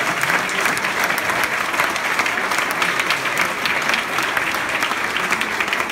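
Audience applauding: many people clapping steadily in a dense, even patter.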